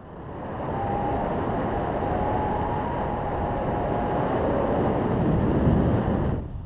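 Wind rushing over an action camera's microphone in tandem paragliding flight: a loud rush that builds over the first second and holds with a faint whistle for a few seconds, then drops off sharply near the end.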